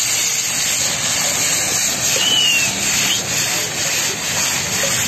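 Steady, loud sizzling of red sauce hitting the hot oil in a wok of frying momos, throwing up steam.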